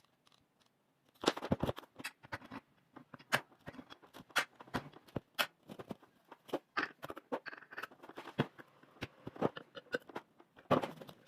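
Irregular clicks, taps and knocks of hard parts being handled, with the angle grinder not running.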